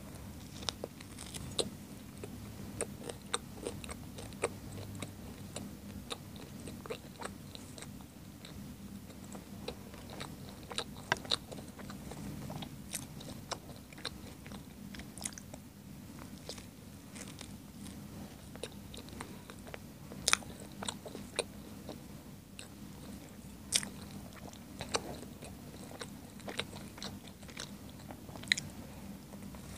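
Close-miked eating of a hot dog, a sausage in a soft bread roll: bites and chewing with many small wet, crackly clicks scattered throughout, a few of them sharper and louder. A steady low hum lies under it.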